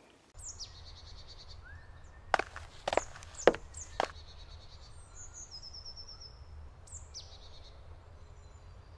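Woodland birds calling: short falling chirps now and then and a brief trill in the middle, over a low steady rumble. Four sharp knocks about half a second apart between two and four seconds in.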